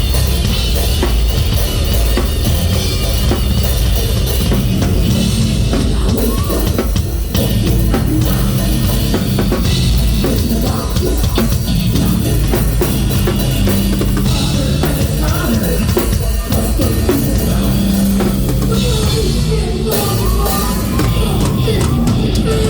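Drum kit played hard in loud live rock music, bass drum and cymbals driving a steady beat.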